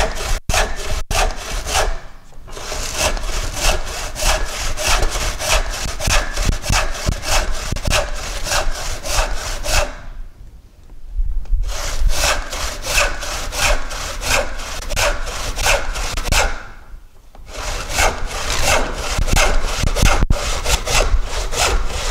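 Hand crosscut saw cutting across the grain of a softwood board with quick, even back-and-forth strokes, stopping briefly three times before carrying on.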